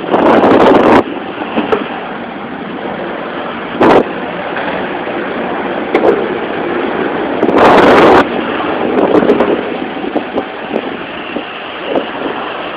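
Skateboard wheels rolling over a concrete floor: a steady rolling noise. Loud rushes of noise break in during the first second, briefly about four seconds in, and again around eight seconds in.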